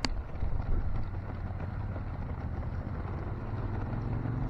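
Wind rumbling on the microphone, a steady low rumble. A sharp click comes right at the start, and a low hum grows louder near the end.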